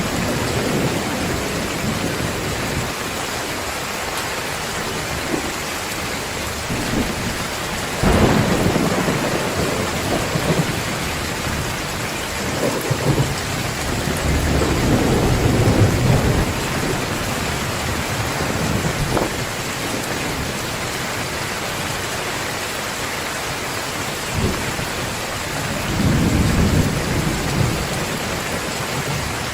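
Heavy rain pouring steadily, with rolls of thunder rumbling low several times: a strong swell about 8 seconds in, a longer one around the middle and another near the end.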